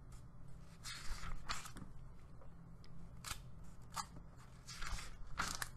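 Faint rustling of paper in several short, crisp bursts, as the pages of a book are turned, over a low steady hum.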